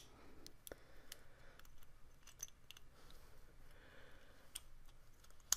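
Faint, scattered clicks and taps as the 28BYJ-48 stepper motor's coil assembly and metal housing are handled and fitted back together, with one sharper click near the end.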